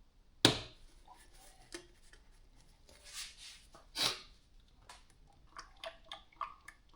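Hands handling tools and parts under a car: a sharp clack about half a second in, a softer knock about four seconds in, then a quick run of light ticks and taps near the end.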